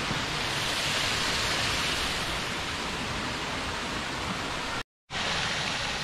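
Small creek waterfall rushing steadily, a constant even hiss of falling water. The sound drops out completely for a split second near the end.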